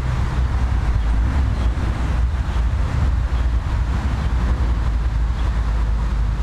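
Wind buffeting the microphone: a steady, fluctuating low rumble with a fainter hiss above it.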